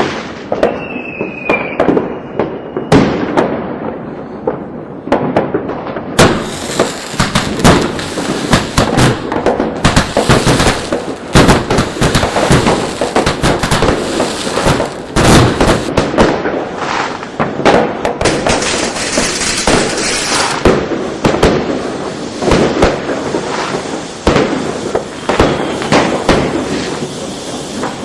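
Fireworks going off in a dense, continuous barrage of bangs and sharp pops, with a stretch of hissing crackle through the middle and a brief high whistle about a second in.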